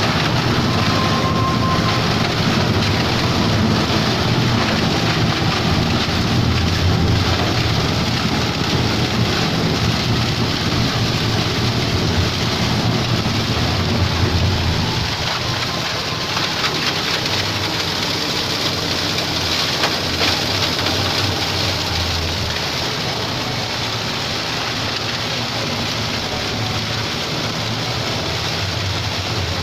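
Plastic shredder machine running and chopping plastic: a dense, steady, clattering noise that eases a little about halfway through.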